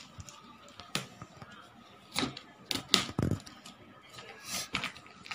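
Scissors snipping through thin plastic wrapping, with a handful of separate sharp cuts and the plastic crinkling.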